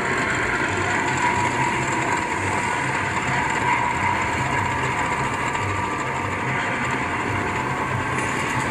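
The Walking Dead slot machine's bonus wheel spinning: a steady run of ratcheting clicks from the game's wheel sound effect.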